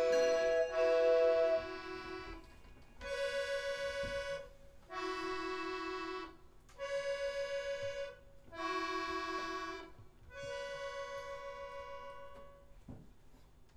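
Instrumental music: a sustained, reedy keyboard or wind instrument plays a slow series of held two-note chords, about six in all, each lasting a second or so with short gaps between, the last one longer and fading out.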